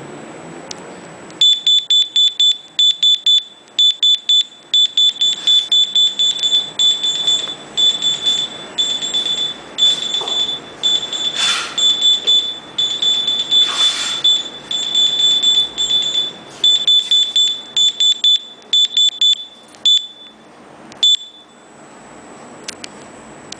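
Handheld UHF RFID reader beeping rapidly, about four high beeps a second in runs with short gaps, each beep signalling a successful read of an on-metal RFID tag. The beeping stops near the end.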